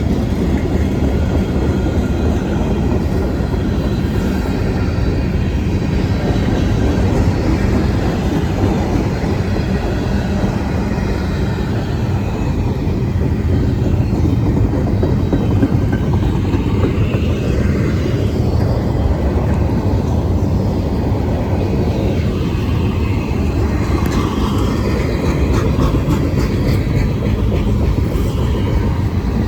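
Freight train cars rolling past on the rails: a steady, loud noise that is strongest in the low end.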